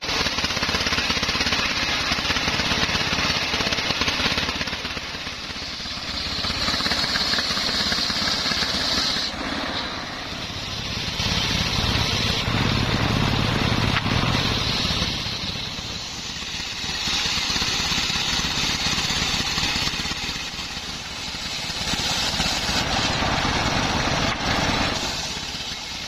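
Homemade belt-driven table circular saw, powered by a single-cylinder diesel engine, ripping dry waru wood. The engine runs steadily under the saw, and the cutting noise rises and falls about every five seconds as each pass goes through the wood.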